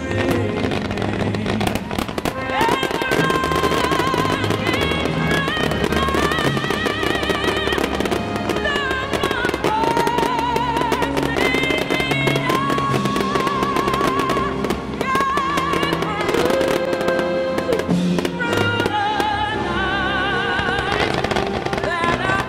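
Music with long, wavering melody notes over a bass line, with fireworks shells bursting and crackling through it.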